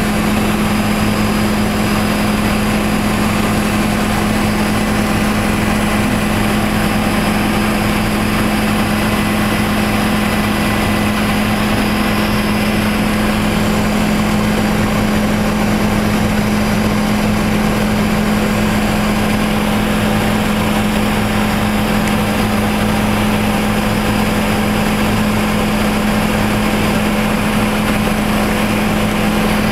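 Helicopter engine and rotor noise heard from inside the cabin in flight: a loud, steady drone with a strong low hum that does not change.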